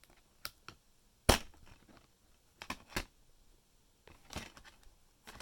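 Sharp plastic clicks and snaps from handling a multi-disc DVD case, with discs and the hinged disc tray being pressed into place. The loudest snap comes about a second in, two more just before and at three seconds, and a softer clatter follows around four seconds.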